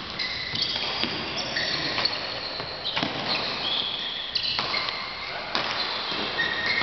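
Court shoes squeaking on a badminton hall floor: many short, high squeaks at shifting pitches, with sharp knocks of racket hits and footfalls about a second apart, in a large echoing hall.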